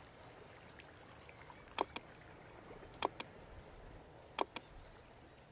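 Three double clicks of a computer-mouse click sound effect, each pair a quick press-and-release, coming about every second and a quarter, over faint hiss.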